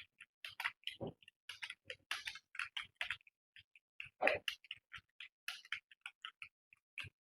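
Computer keyboard being typed on at speed: quick, uneven key clicks several times a second, with one heavier key knock a little past halfway.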